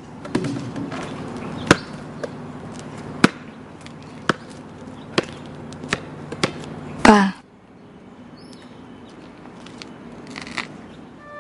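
Basketball thumping on an outdoor court over a steady background hum: a sharp knock every second or so, then a louder hit with a short falling ring about seven seconds in.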